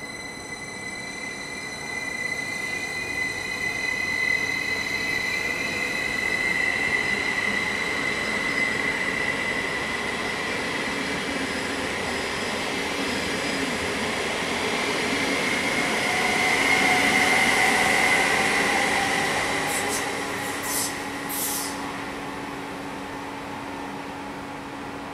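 Stadler KISS double-deck electric multiple unit pulling away and accelerating past: a high electric traction whine that bends and rises in pitch, over the rumble of wheels on rails, swelling and then easing as the train moves off, with a few short high clicks near the end.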